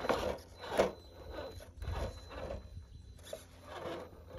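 Scale RC rock crawler's electric motor and drivetrain whirring in several short bursts of throttle while its tires scrape and claw on rock. The truck is working its front end up through a tight gap between boulders.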